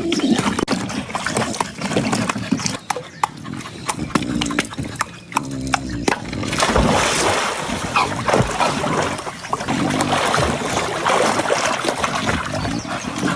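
A dog making short, repeated low calls while splashing in a swimming pool. The water splashing grows more continuous from about halfway through.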